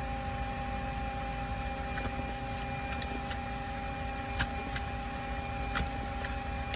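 Car running at idle: a steady low rumble, with a few light clicks between about two and six and a half seconds in.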